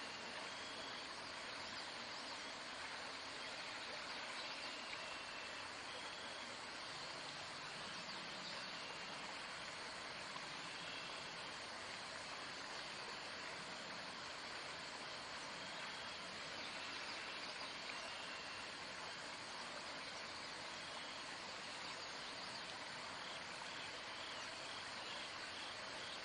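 Steady outdoor background noise, an even hiss, with faint short high chirps here and there.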